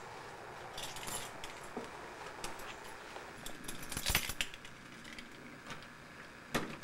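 Keys jangling and clicking at a brass doorknob lock as a hand works the knob to open the door. There is a sharper click about four seconds in and another near the end.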